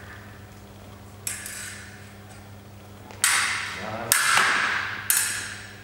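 Fencing sabre blades clashing, four sharp metal-on-metal strikes that ring on and echo in a large hall. The first is lighter, and the strike about four seconds in is the loudest.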